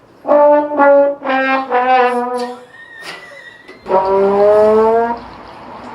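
Trombone-like brass sound effect: four short notes stepping downward, then after a pause one long note that slides upward.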